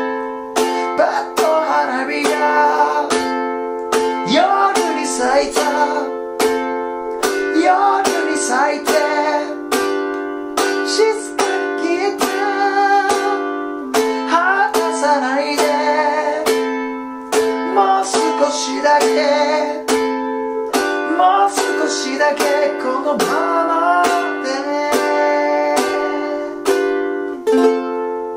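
A man singing in Japanese while strumming a ukulele, steady chord strums on F, G7 and Am.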